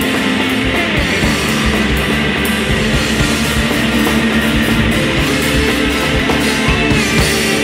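Rock music with guitar, playing steadily without singing.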